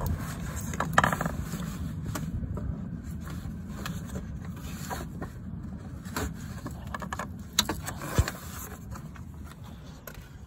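A few light knocks and scrapes as the gear-oil filler hose is handled and pulled from the gearbox fill hole, over a low steady rumble.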